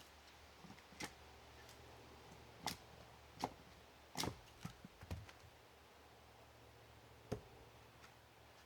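Faint, irregular clicks and knocks, about six of them a second or so apart, over a low steady hum.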